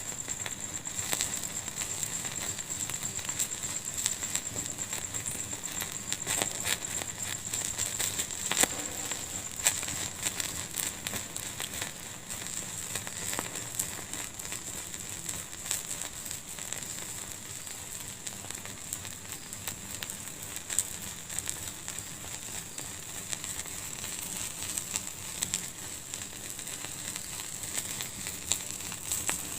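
Fire crackling in a fireplace: a steady hiss with frequent sharp pops and snaps, a few of them louder.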